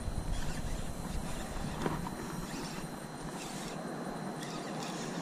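Steady rustle of handling noise with a few faint knocks, from a fishing rod and reel being worked and an arm brushing close to a body-worn camera while a hooked largemouth bass is reeled in. A low rumble in the first two seconds fades away.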